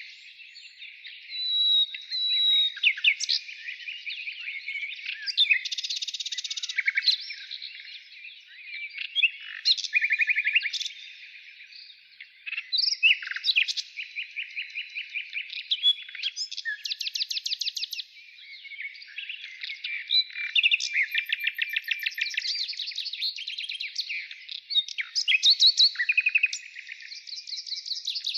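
Birdsong: a continuous run of chirps, whistled notes and fast rattling trills, with hardly a break.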